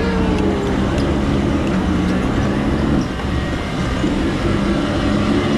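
Battery-powered bumper car driving across a paved floor: a steady low rolling rumble with a motor hum, easing slightly about three seconds in.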